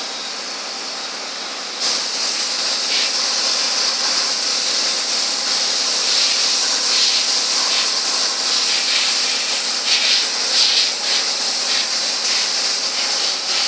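Compressed air hissing from a paint spray gun (airbrush) as it sprays paint in a steady stream. The hiss is softer for about the first two seconds, then louder, with brief flickers as the trigger is eased and pressed again.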